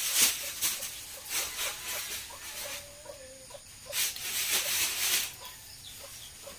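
Domestic chickens clucking, short calls scattered through with one longer held call about three seconds in. Two longer bursts of noise come about a second in and again around four to five seconds.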